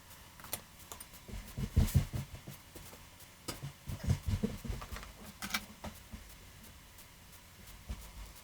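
Thick rice and shredded beef filling simmering in a covered pot: irregular low plops and small clicks from the bubbling, coming in two clusters.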